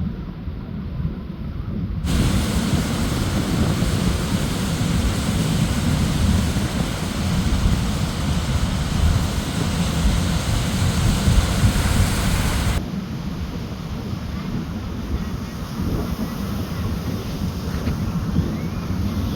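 Ocean surf washing on a beach, with wind rumbling on the microphone. A louder, brighter hiss of surf cuts in abruptly about two seconds in and drops away just as abruptly about eleven seconds later.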